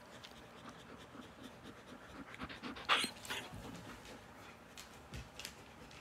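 Several dogs panting a lot after coming in from outside, a soft, rapid breathing. A louder sudden sound stands out about halfway through.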